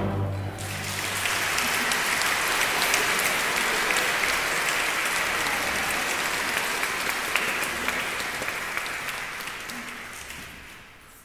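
The last chord of a choir and full orchestra dies away in the first second, and the audience bursts into applause. The applause holds steady and fades out near the end.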